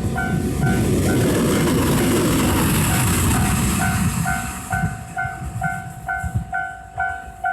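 A JR Hokkaido H100 'DECMO' diesel-electric railcar passes over a level crossing with a loud rumble and rush of wheel noise that fades after about four seconds. The crossing's warning bell rings a two-tone beep about twice a second throughout, drowned out while the train goes by and plain again near the end.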